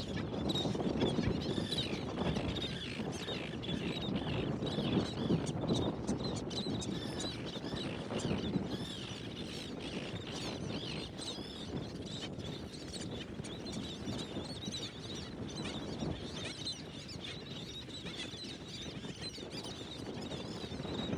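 A flock of shorebirds calling, many short overlapping calls, over heavy wind noise buffeting the microphone.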